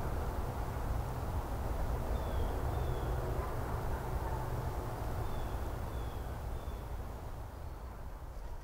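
Outdoor street ambience: a steady low rumble with a few faint, short bird chirps, slowly fading down toward the end.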